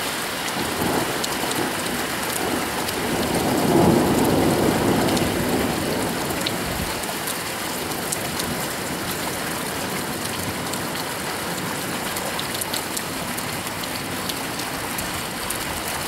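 Steady heavy rain during a thunderstorm, with a rumble of thunder that swells about three seconds in, peaks around four seconds and fades away by about six seconds.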